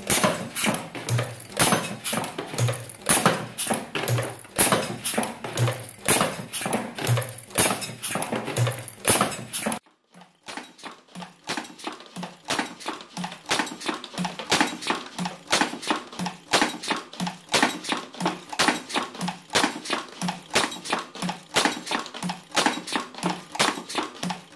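A .22LR rimfire cartridge loading machine with a rotary indexing dial running, clacking in an even rhythm of about three knocks a second as the dial indexes and the tooling head strokes. The sound cuts off briefly about ten seconds in, then the same rhythmic clacking resumes.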